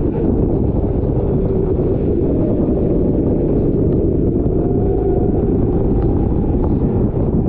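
Rental racing kart engine running steadily, with heavy wind rumble on the microphone; a faint engine note rises slightly about five seconds in.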